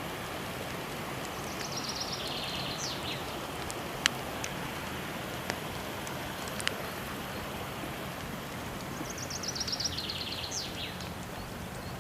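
Steady rushing of a waterfall with occasional sharp crackles and pops from a burning wood fire. A bird sings a short trilled phrase that steps down in pitch, twice: about a second and a half in and again about nine seconds in.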